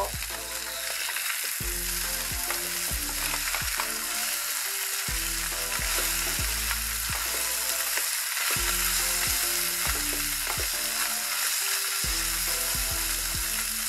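Small fish frying in hot soybean oil in a non-stick pan, sizzling steadily as a wooden spatula stirs and turns them so they crisp.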